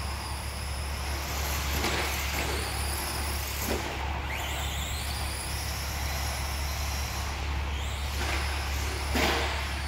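Arrma Senton Mega 4x4 RC truck's 12-turn brushed electric motor whining as it is driven on a dirt track. The high-pitched whine rises and falls with the throttle, with a rise near the middle. A few brief knocks come through over a steady low hum.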